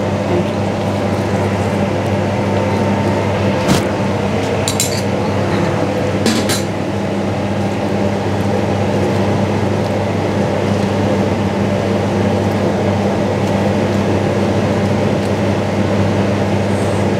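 Steady hum of a commercial kitchen's ventilation, with three short clinks of crockery a few seconds in.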